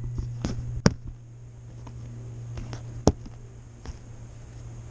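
A steady low hum with a few sharp metallic clicks, the loudest about a second in and another about three seconds in: coins tapped together, the coin-tap squirrel call that imitates a squirrel cracking a nut.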